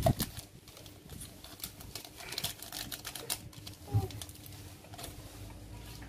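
Irregular clicking and rustling of homemade fishing bait being worked by hand, with more hardener going into a mix that is too soft. A low thump about four seconds in.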